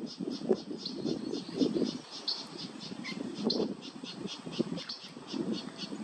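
Steady, rhythmic high-pitched chirping, about five pulses a second, from a calling animal, over an uneven low rumble of background noise.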